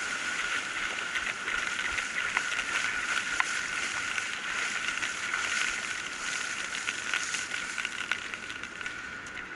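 Surf foam washing up over a sandy beach and draining back, a steady rush full of small crackles from the fizzing bubbles, with a steady high whine underneath.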